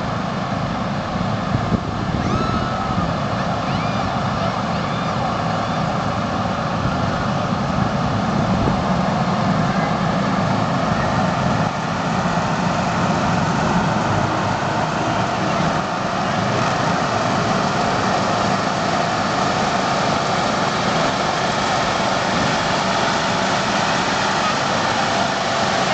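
Lawn mower engines running steadily.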